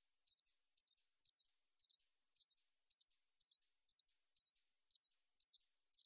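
Song of the jannalgae-yeochi (잔날개여치), a short-winged bush-cricket: a faint, high, even series of short chirps, about two a second.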